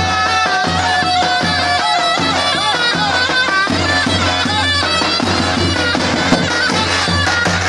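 Zurna playing a wavering, ornamented halay melody over the steady beat of a davul bass drum; the zurna opens on a long held note before breaking into quick turns.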